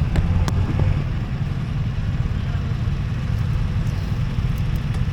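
Steady low engine rumble filling the ferry's enclosed vehicle deck, with a couple of sharp clicks just after the start and a few faint ticks around four seconds in.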